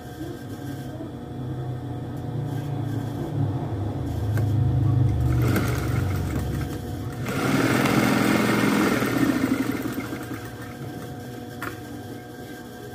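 Electric sewing machine stitching a seam, its motor running in spurts that speed up and slow down, loudest around the middle and falling away near the end.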